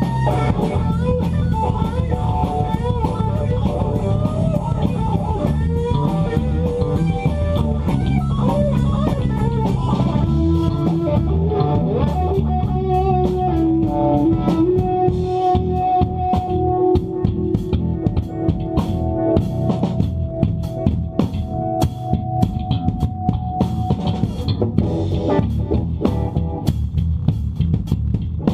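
Live band jamming: electric guitars over a drum kit, with a long held note through the middle.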